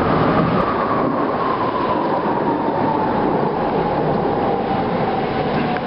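Jet aircraft passing overhead, Kawasaki T-4 jet trainers with twin turbofans: a steady engine roar with a whine that slides slowly down in pitch.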